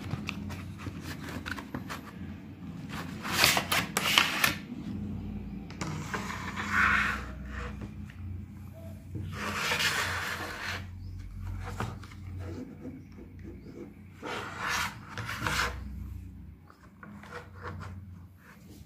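Cardboard packaging and a black plastic folding phone screen magnifier being handled with rubber-gloved hands: irregular rubbing and scraping in several separate bursts of a second or so.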